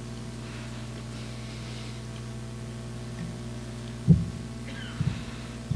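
Steady electrical mains hum in the sound system, with three short low thumps about four and five seconds in, the first the loudest.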